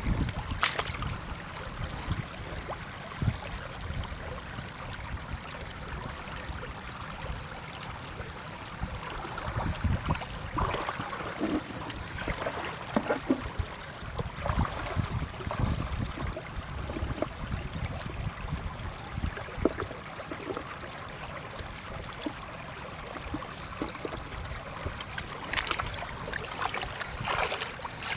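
Shallow water splashing and sloshing, with irregular low knocks and handling noises.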